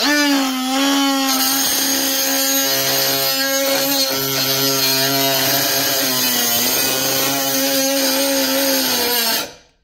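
Snap-on 14.4 V brushless inline die grinder spinning a small cutoff wheel into metal square tubing: a steady high whine with the grinding of the wheel on the metal, its pitch sagging briefly about six seconds in. It stops abruptly near the end, typical of the tool's overload safety switch cutting it off.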